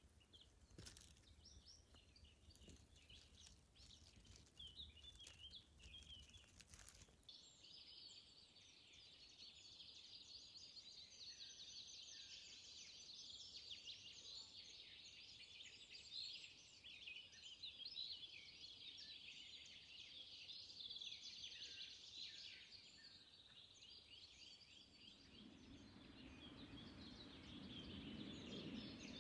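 Faint chorus of songbirds: many overlapping chirps and trills, sparse at first and dense after about seven seconds. In the first seconds a few clicks and a low rumble sit under it, and near the end a low steady rumble joins.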